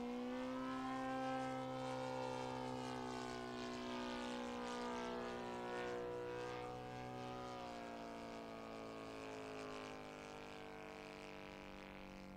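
Saito FG57TS four-stroke twin-cylinder petrol engine and propeller of a radio-controlled aerobatic model plane in flight, running at a steady high note. The pitch drops a little about seven and a half seconds in, and the sound slowly fades near the end.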